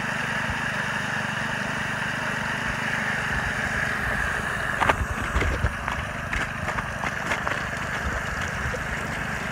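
Small gas-engine water pump running at low idle, with water spraying from the highbanker's spray bars and splashing down the sluice. A few short knocks come about halfway through.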